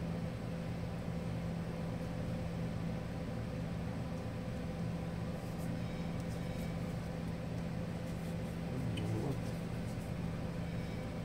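Steady low machine hum of background equipment, with a few faint light clicks of handling about halfway through and near the end.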